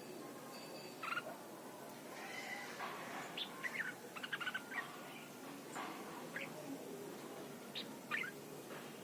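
Red-whiskered bulbul singing: short, quick whistled phrases in several bursts, busiest in a run of rapid notes in the middle.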